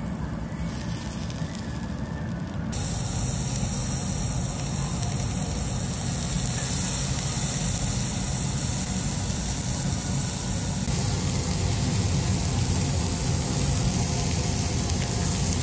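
Beef sizzling on a hot cast-iron barbecue grill plate: a steady hiss that jumps louder about 3 seconds in and again about 11 seconds in.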